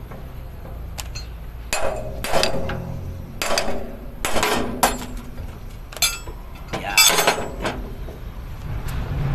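Metal parts and hand tools clinking and knocking against each other in a string of irregular separate strikes, several of them ringing briefly.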